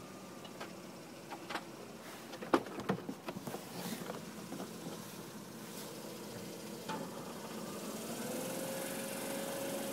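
Mazda RX-8's rotary engine running, with scattered sharp squeaks and clicks over the first few seconds. About eight seconds in, a steady whistle comes in over the running sound: the squeak and whistle being chased on this car.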